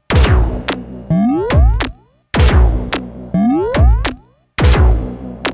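Skweee electronic music: a drum-machine beat under synth lines that glide upward in pitch, the phrase repeating about every two seconds.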